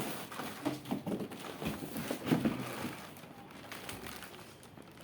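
Irregular knocks and rustles from the inverter and its packaging being handled during unboxing, busiest in the first three seconds and then dying down.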